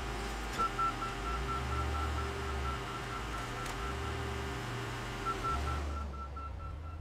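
Wheel loader's reversing alarm beeping rapidly in a single high tone, pausing about four seconds in and starting again, over the low rumble of its diesel engine as it backs away from the car crusher with a crushed car bundle.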